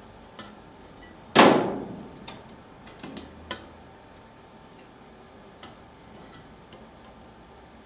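A hammer striking sheet steel once, hard, about a second and a half in, the metal ringing briefly as it dies away, followed by a few light taps and clicks as the patch panel is worked to fit the jeep tub's step.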